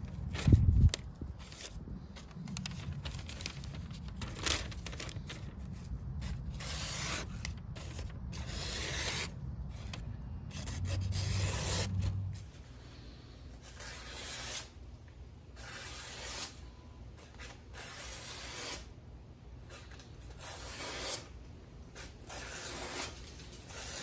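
Sharp Swiss Army knife blade slicing through a hand-held sheet of newspaper, a short papery swish with each stroke, about one a second, showing the blade cuts paper cleanly. Wind rumbles on the microphone through the first half, and there is a loud thump just after the start.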